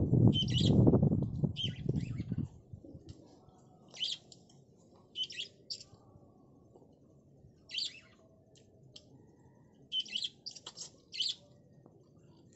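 Small birds chirping in short, scattered high calls, about a dozen in all. A loud low rushing noise fills the first two seconds or so.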